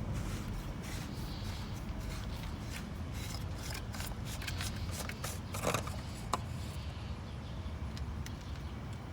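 Scattered clicks and scrapes of parts and tools being handled while working on the oil filter housing, with a louder cluster a little over halfway through, over a steady low rumble.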